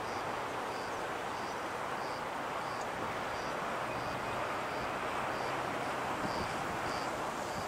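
Steady rushing noise of a Boeing 777-200F freighter's twin GE90 jet engines as it rolls down the runway after landing. A faint high chirp repeats about every two-thirds of a second throughout.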